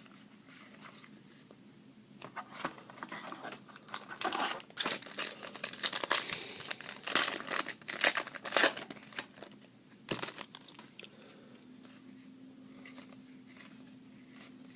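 A trading-card pack wrapper being torn open and crinkled by hand: a run of irregular crinkling from about two seconds in, loudest in the middle, dying away by about ten seconds.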